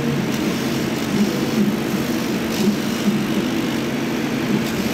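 Laser cutting machine running, a steady mechanical hum and whir from the machine as its head works over the sandpaper sheet.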